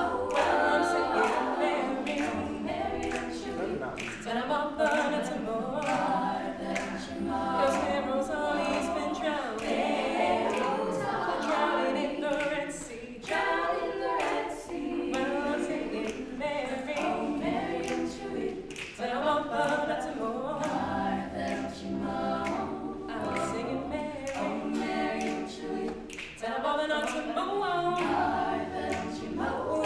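Women's a cappella group singing, a solo voice carrying the melody over the group's backing harmonies.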